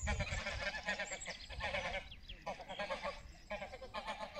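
Greylag geese calling in rapid runs of short honks, breaking off briefly about halfway through before starting again.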